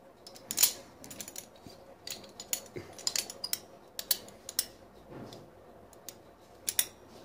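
Locking pliers being adjusted and clamped onto a screw: irregular sharp metal clicks and taps, the loudest about half a second in and another near the end.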